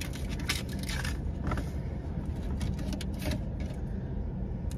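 A steady low rumble of an idling car, with scattered light clicks and rustles as Korean corn dogs are taken out of their takeout box.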